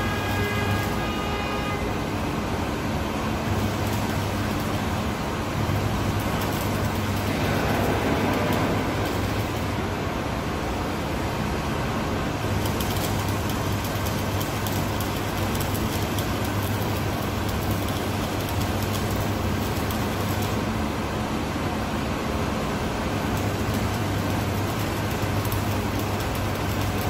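Electric arc welding on a steel tank cover: a continuous crackling buzz from the arc over a low mains hum from the welder, the hum dropping out briefly a few times.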